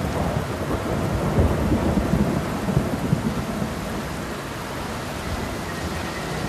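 A steady rain-like rushing noise with low rumbling, a little louder in the first half.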